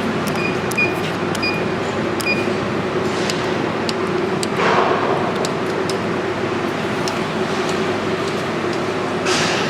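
CNC plasma cutting machine running with a steady hum. Short electronic beeps sound in the first couple of seconds, and a hiss of air flares up twice, about halfway through and near the end.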